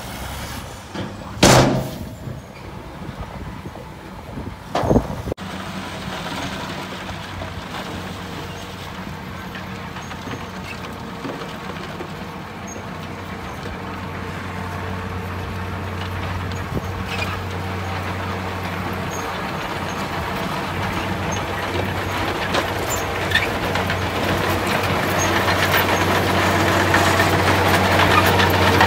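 Two loud bangs near the start, from a dump truck that has just emptied its raised bed. Then a loaded diesel dump truck's engine runs steadily and grows louder as it drives the hydraulic hoist tipping its bed of soil.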